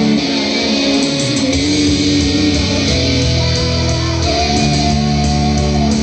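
Idol pop song played loud over a stage PA: a backing track led by guitars, with a female singer's voice into a handheld microphone.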